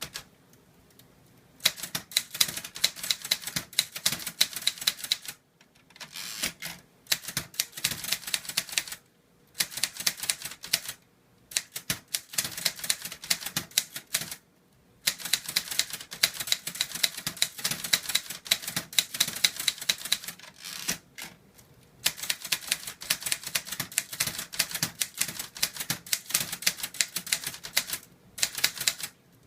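Hangul typewriter being typed on, its keys striking through carbon paper in place of an ink ribbon. Quick runs of sharp clacking keystrokes, several a second, are broken by brief pauses about every few seconds.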